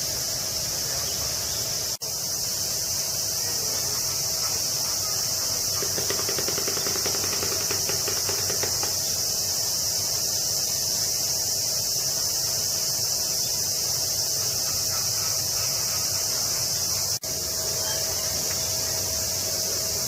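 Cicadas droning in a steady, high-pitched summer chorus, broken by two very brief gaps.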